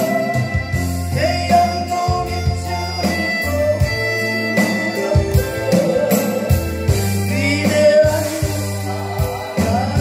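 A woman singing a Korean gospel hymn into a microphone, holding notes with vibrato, over instrumental accompaniment with bass and drums.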